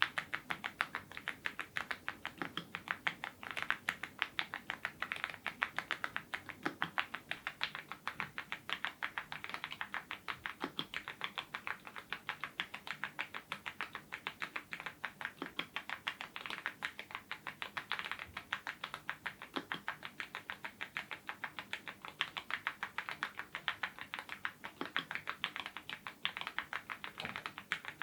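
Fast continuous typing on a YUNZII IF99 full-size mechanical keyboard fitted with lubed Gateron Ink red linear switches: a steady stream of crisp keystroke clacks, with a deeper, heavier key stroke every few seconds.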